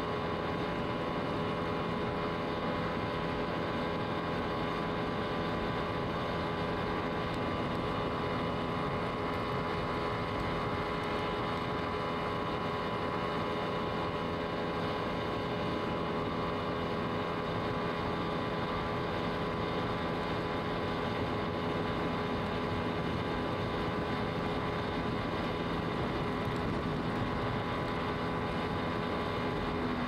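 Motorboat engine running steadily under way, a constant hum of several pitches over an even rush of water.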